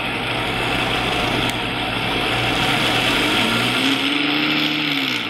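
Vitamix blender motor running, blending a thick paste of soaked macadamia nuts and water in a narrow container. The pitch rises a little past halfway, then falls as the blender slows near the end.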